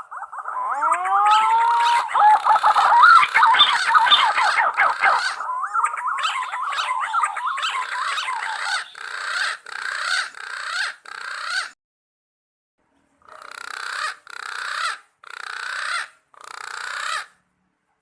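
Green pigeons (punai) calling: a chorus of overlapping whistled notes gliding up and down, then a run of shorter repeated notes. After a pause of about a second and a half come four separate notes, each swelling louder.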